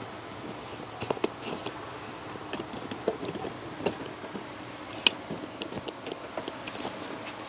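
Irregular light clicks, knocks and rustles of handling and movement, over a steady background hiss.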